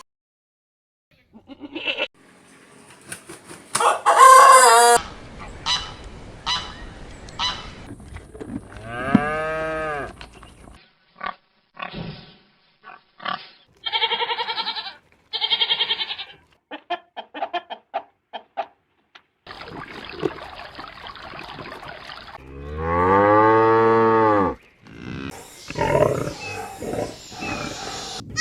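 A string of farm-animal calls cut together, with poultry the most prominent: chickens clucking and a rooster crowing, along with goose-like honks. Separate calls come one after another, several of them long pitched calls that rise and fall, and the background changes abruptly between clips.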